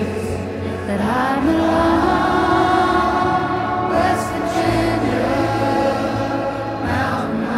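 Music: a slow song's wordless vocal outro, with long held notes sung in layered harmony.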